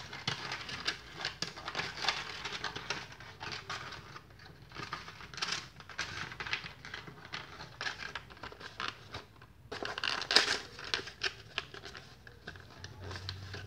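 Stiff cardstock rustling, crackling and scraping as a folded paper frame side is worked under and slotted into an opening, with a louder spell of crackling about ten seconds in.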